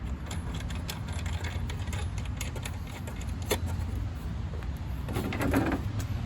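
Scattered light metallic clicks and clinks as the blade, arbor parts and guard of a gas concrete cut-off saw are handled and fitted, with one sharper click about three and a half seconds in, over a steady low background rumble.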